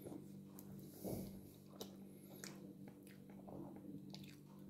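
Faint chewing and mouth sounds of men eating sausage, with a few small clicks and smacks, over a low steady hum.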